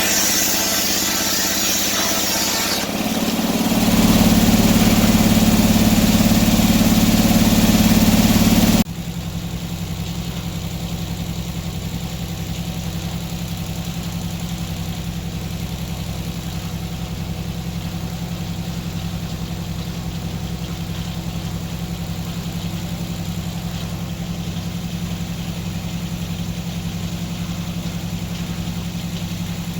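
Antique sawmill running on its engine: loud and heavy for the first few seconds with a high hiss over it, rising and deepening after about three seconds. About nine seconds in it drops suddenly to a steady, even engine note.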